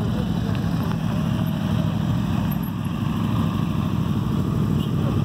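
A group of motorcycles running steadily as they ride slowly past one after another, their engines blending into one low, even sound with no clear revving.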